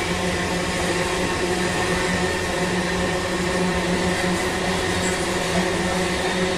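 A diesel-electric freight train running steadily: an even rushing noise under a constant low engine hum.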